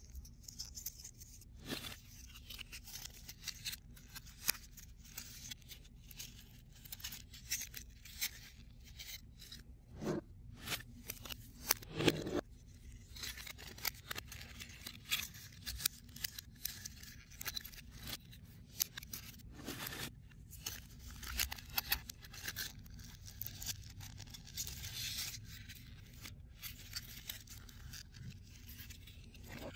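CubicFun foam-board 3D puzzle pieces being handled and fitted together: frequent small clicks, creaks and scrapes as tabs are pushed into slots, with a few louder knocks, the loudest about twelve seconds in.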